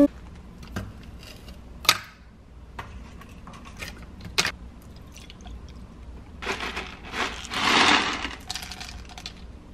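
Food being handled into a plastic blender cup: a few light knocks and taps as frozen banana pieces drop in, then a louder rustle lasting about two seconds near the end.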